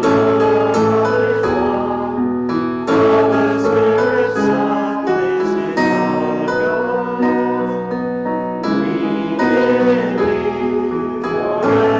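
Congregation singing a worship song set to the words of the Christian creeds, with instrumental accompaniment; held chords change every second or two.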